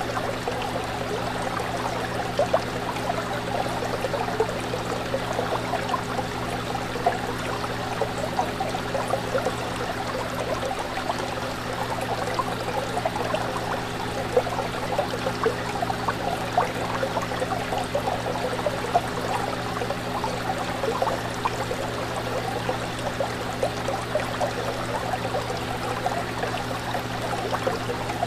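Fish tank water bubbling and trickling steadily, over a constant low hum.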